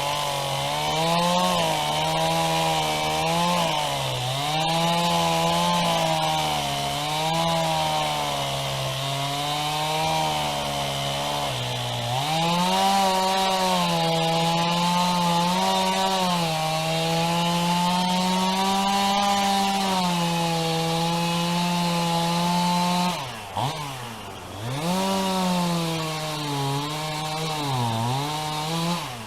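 Two-stroke chainsaw cutting through a fallen white oak, running at high revs with its pitch sagging and recovering as the chain bites. The engine drops off and picks back up twice near the end.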